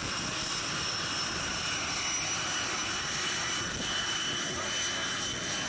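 Hawker Sea Hawk's Rolls-Royce Nene turbojet running as the jet taxis, a steady rumble with a constant high-pitched whine over it.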